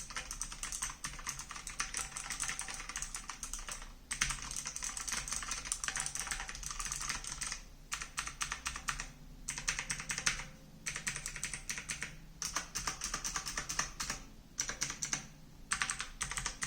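Fast typing on a Logitech G512 mechanical keyboard with clicky blue switches, rapid key clicks in runs of a few seconds with short breaks between them.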